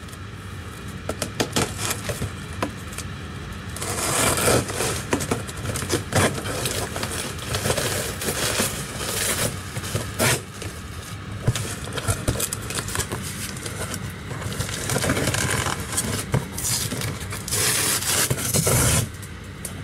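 Cardboard shipping box being opened by hand: irregular scraping and rustling of cardboard with small clicks and knocks from handling, louder in a few stretches, the loudest near the end.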